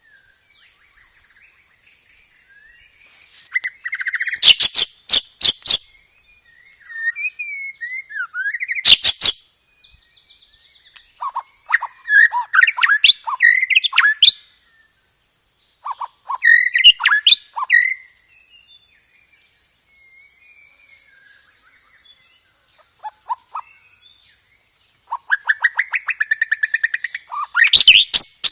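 White-rumped shama (murai batu) singing loud, clear bursts of song made of rapid rattling trills and sharp high notes, each burst a second or two long with short pauses between. A steady high-pitched hum runs underneath.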